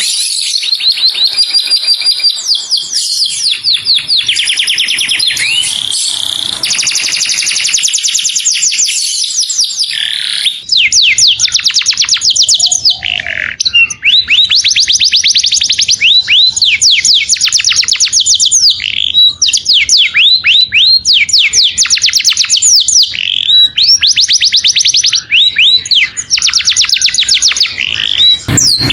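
Canary singing a continuous song of fast trills and rolls: runs of rapid, repeated downward-sweeping high notes, each run lasting a second or two before the next begins.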